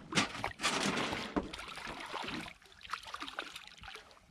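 Splashing, trickling water with a few knocks, loudest in the first couple of seconds.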